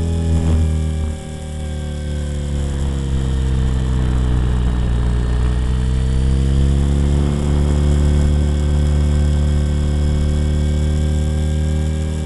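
Blade 400 electric RC helicopter in flight, heard up close from its tail: a steady buzz from the main rotor and motor with a whine on top whose pitch sags around the middle and climbs back.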